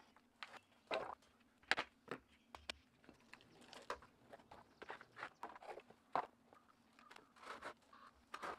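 Wooden concrete form boards being pried and pulled off a newly set concrete curb: faint, irregular knocks and scrapes of wood against concrete, with footsteps on gravel.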